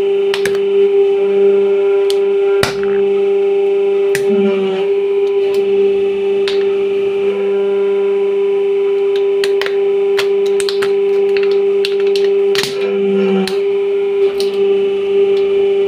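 Hydraulic press running with a steady humming whine while plastic toys crack and snap under the ram: sharp cracks scattered throughout, with a cluster of loud snaps near the end as a toy motorcycle is flattened.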